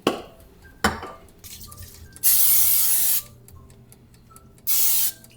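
Olive oil cooking spray being sprayed over cooking fish: a hiss about a second long, then a shorter second hiss near the end, after two light knocks.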